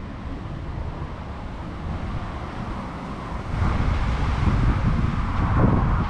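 John Deere 8700i combine harvester's 19-litre six-cylinder diesel running, with wind rumbling on the microphone; the sound gets louder about three and a half seconds in.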